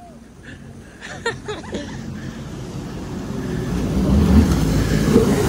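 Jet ski engine and rushing water, starting low and building steadily louder over the last few seconds.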